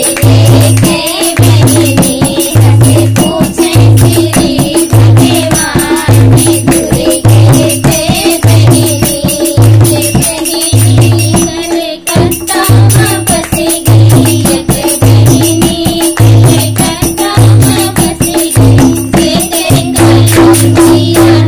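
Devotional Devi geet folk music: a voice singing over a steady drone, a rattling percussion beat like a tambourine, and a deep bass beat about once a second.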